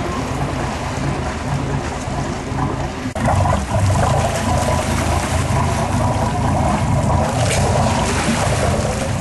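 Water splashing and churning against a boat's hull over the steady low hum of the boat's engine; the splashing gets louder about three seconds in.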